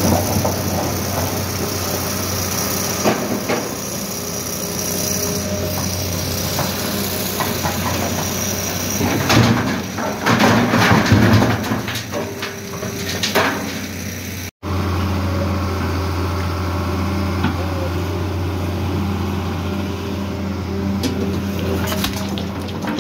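Hitachi EX270LC crawler excavator's diesel engine running with a steady low hum. About ten seconds in, stone blocks clatter and thud into a steel dump-truck bed as the bucket unloads.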